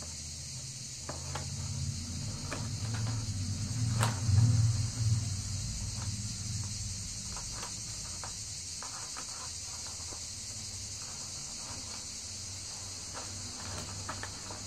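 A steady high-pitched insect buzz carries through. Over it come faint light clicks of small metal snaps and line being handled, with one sharper click about four seconds in. A low rumble swells and fades in the first half, loudest around four to five seconds in.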